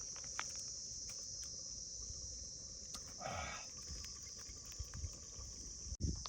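Steady high-pitched insect chirring, with a short louder sound about three seconds in and a few faint clicks.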